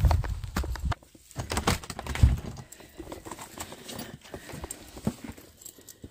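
A low wind rumble on the microphone for about the first second, then footsteps and a run of scattered clicks and knocks as a door is opened and walked through onto a hard floor.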